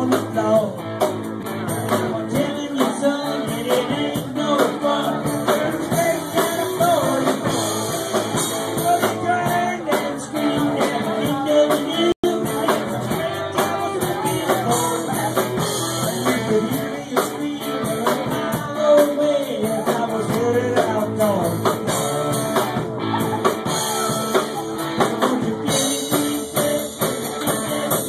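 Live rock band playing: drum kit, guitar and a singing voice. The sound cuts out for an instant about twelve seconds in.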